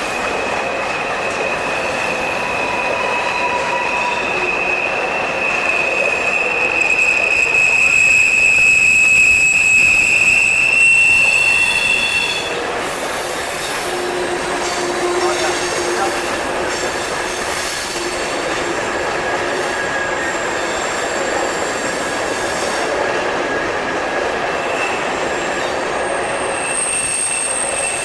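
Mixed freight train cars rolling past with their wheels squealing. A steady high squeal grows louder until about ten seconds in and stops abruptly a couple of seconds later; after that, fainter high squeals continue over the steady rumble of the wheels.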